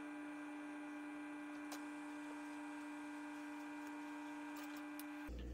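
Stepper motors of a Lowrider 2 CNC driving the gantry through its XY homing, played back five times faster: a faint, steady hum that cuts off suddenly near the end, with a few faint ticks.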